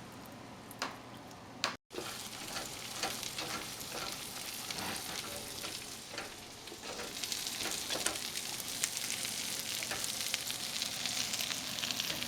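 Breaded veal cutlets frying in butter in a pan: a steady crackling sizzle that grows louder about halfway through.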